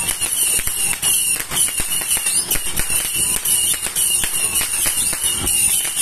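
A 200-shot Diamond Fireworks 'Crossfire' cake firing shot after shot in quick succession, with several sharp pops a second and a constant hiss over them.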